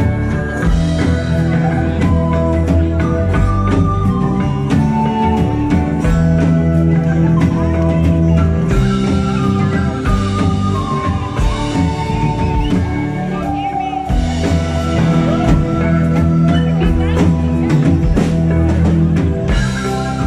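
A rock band playing live: drum kit, electric guitars and bass with a melody line over them, heard from the audience.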